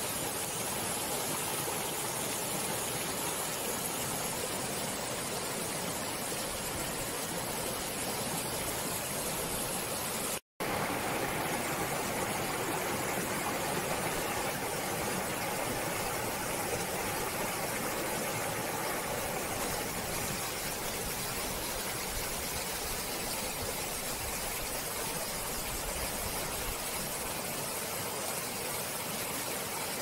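Stream water flowing steadily, an even rushing hiss that breaks off for an instant about ten seconds in.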